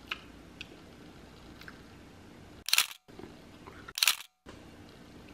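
Camera shutter firing twice, about a second and a half apart. Each shot is a short, sharp burst, followed by a moment of dead silence, as a thumbnail photo is taken. Faint small clicks come before the first shot.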